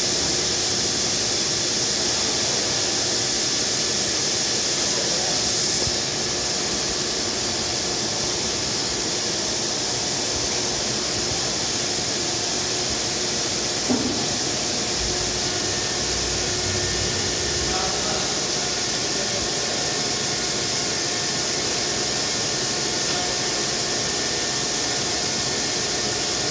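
A granite CNC machine's spindle spinning a diamond tool while a wet dressing stick is swept against it to dress the tool, with water spraying. The sound is a steady high hiss over a low rumble, with one small click about halfway through.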